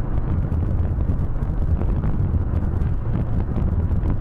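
Steady low rumble of a moving vehicle, with wind noise on the microphone.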